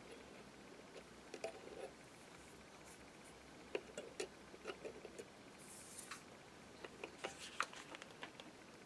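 Faint, scattered light clicks and taps of a small metal flower embellishment being handled and pressed onto a painted board, with a short rustle about six seconds in.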